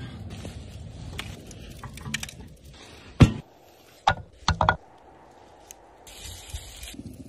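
A low rustling rumble, then a single loud, sharp knock about three seconds in, followed a second later by three quicker knocks of wood on wood as a wooden bowl is set down on a wooden table.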